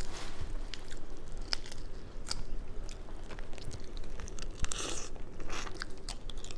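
Boiled seafood-boil shellfish being peeled by hand, then bitten and chewed close to the microphone. There are scattered short crunches and clicks, and a brief louder rustle a little under five seconds in.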